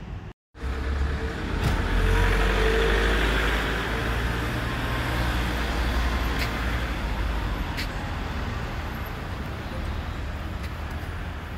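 Road traffic: a car passing on the nearby road, its tyre and engine noise swelling about two seconds in and fading slowly over a low steady rumble.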